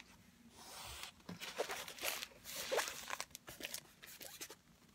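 Rustling and crackling of paper and plastic packaging as a rolled diamond painting canvas is slid out of its paper sleeve and handled, with many sharp crinkles through the middle, fading near the end.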